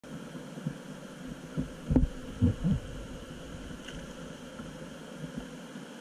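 Steady rush of river water from aboard an inflatable whitewater raft, with several dull low thumps in the first three seconds, the loudest about two seconds in.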